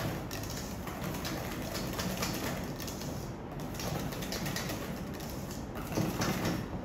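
Wire balloon whisk beating thick cheesecake batter in a stainless steel bowl: a steady run of quick clicks and scrapes as the wires strike the metal.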